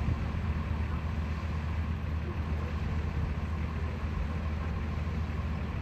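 An engine idling steadily, a low even hum with some background noise.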